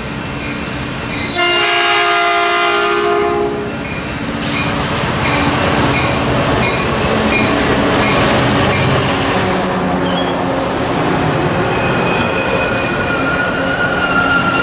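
Caltrain F40PH diesel locomotive sounding one long horn blast of several notes at once, lasting about two and a half seconds. The locomotive and its bi-level passenger cars then run past close by with a steady rumble of engine and wheels. In the last few seconds a steady high squeal from the train sets in and grows.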